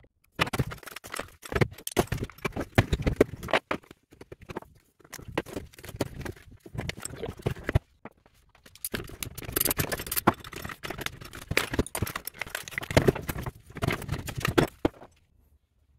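Dense clicking and clattering of hard plastic and metal parts as the BYD Atto 3 battery's contactor block housing is handled and pulled apart to free a contactor, in two stretches with a short break about halfway.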